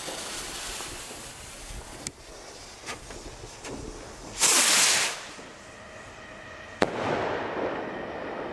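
Two small glitter rockets firing. There is a hissing launch at the start, a louder hiss lasting about a second near the middle, and a single sharp pop about seven seconds in, followed by a softer trailing hiss.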